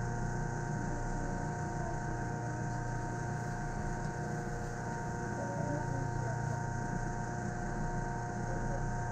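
Steady hum of a stationary Yamaman Yukarigaoka Line train heard inside its cab: a constant low drone with several steady whining tones from its onboard electrical equipment.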